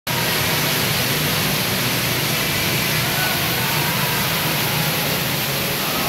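Waterfall: a steady rush of water pouring down.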